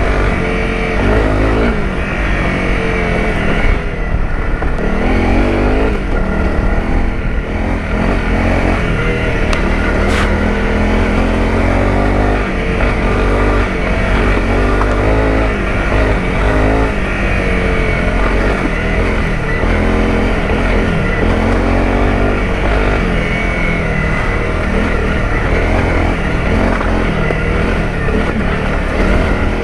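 Honda CRF250 Rally's single-cylinder 250 engine running under load on a dirt trail, its pitch rising and falling over and over as the throttle is opened and closed. A single sharp click about ten seconds in.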